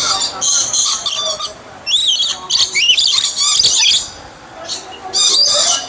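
Aviary birds squawking and screeching in quick, harsh runs of high calls for about four seconds, then a short lull and another burst near the end.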